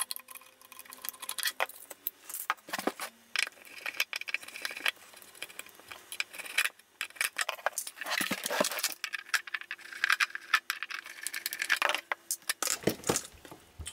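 Small flat-blade screwdriver working tiny slotted screws out of a metal avionics case: a scattered run of short metallic clicks, scrapes and clinks.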